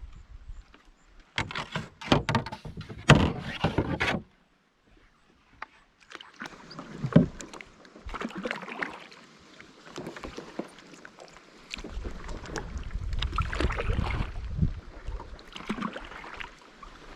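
Canoe paddling: paddle strokes splashing and water sloshing against the hull in uneven bursts, with wind rumbling on the microphone in the second half. The sound drops out briefly about four seconds in.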